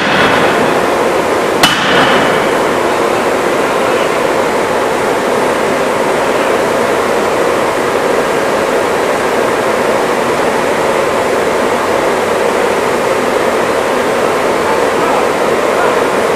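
Power forging hammer striking: a sharp blow right at the start and another about 1.7 s in, each with a short metallic ring. Loud steady machine noise runs underneath throughout.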